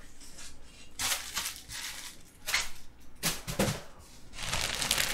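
Clear plastic wrapping crinkling and rustling in irregular bursts as it is handled, with a dense run of crackling near the end.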